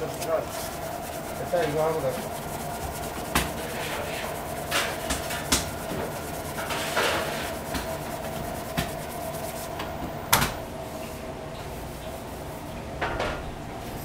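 Cherry tomatoes with sliced garlic being tossed in a stainless-steel bowl: a soft rolling rub with scattered knocks against the metal, the sharpest about ten seconds in, over a steady hum.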